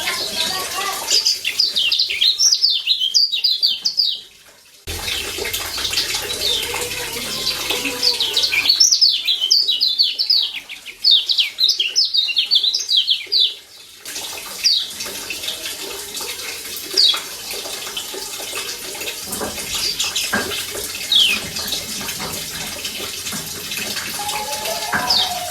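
Lombok yellow white-eye (kecial kuning) giving rapid runs of short, high, falling 'ciak' chirps, two long bursts and then scattered single chirps, over a steady hiss of running water.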